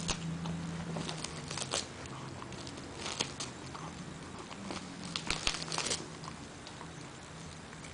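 A dachshund gnawing on a dry, fibrous chew, in several short bursts of crackling, crunching clicks with pauses between.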